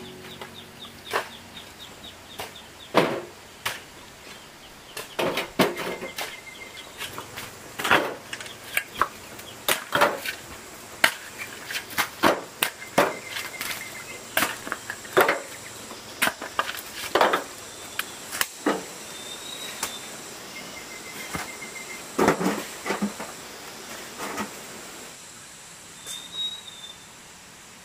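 Irregular knocks and strikes of hand-tool work on wood, a few of them loud, spaced unevenly through the stretch. A short trilled chirp repeats every several seconds in the background.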